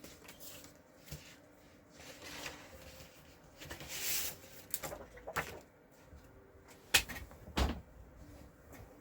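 Craft supplies being handled on a tabletop: a soft rustle of paper, then a few sharp plastic clicks and knocks, the loudest two about seven seconds in.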